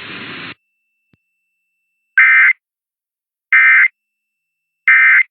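Emergency Alert System end-of-message signal: three short, loud bursts of buzzing digital data tones, each about half a second long and about a second apart, marking the close of the test message.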